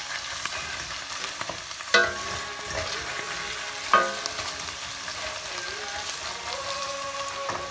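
Minced meat sizzling as it fries in a stainless steel pot while a wooden spoon stirs and scrapes through it. Twice, about two seconds apart, the spoon knocks sharply against the pot, which rings briefly.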